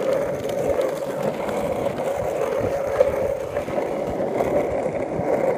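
Kryptonics skateboard's wheels rolling over rough asphalt: a steady rumble, with a single knock about three seconds in.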